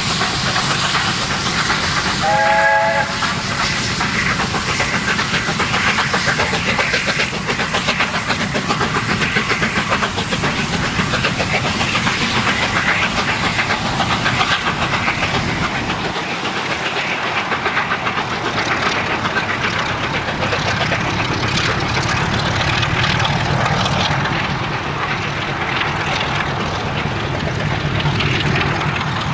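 Steam locomotive hauling a passenger train past, its exhaust beating rapidly over the rumble of the train on the rails. A short steam whistle of several notes at once sounds about two seconds in.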